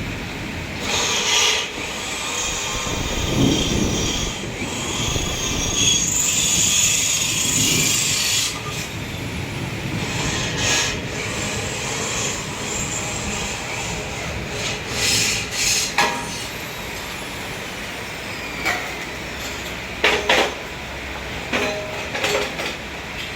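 Electric-motor-driven soybean washing machine running with an uneven mechanical clatter and rattle. Several sharp knocks come near the end.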